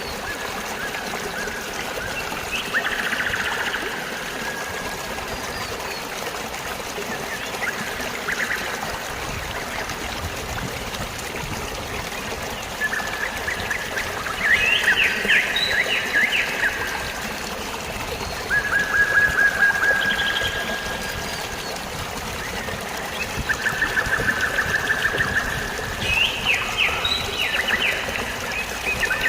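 Steady trickling, flowing water with birds singing over it: repeated rapid trilled phrases, loudest and most frequent in the second half.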